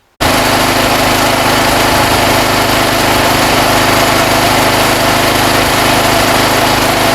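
Petrol backup generator engine running steadily at an even speed after a temporary repair to its leaking fuel line. It is loud and constant, with no change in pitch.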